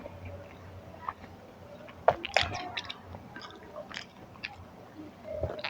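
Mouth sounds of a person chewing food, with moist clicks and smacks and a couple of sharper bites a little over two seconds in.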